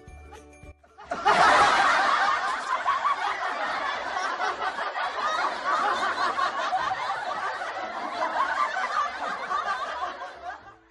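A group of people laughing and snickering together, many voices at once. It starts suddenly about a second in and fades out just before the end.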